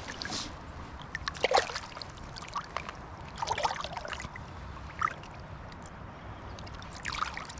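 River water running steadily, with a few short, irregular splashes as a hooked fish is drawn in toward the bank.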